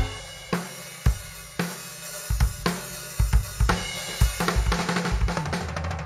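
Drum kit playing a groove, with kick drum hits, snare and cymbals over a low, steady bass part.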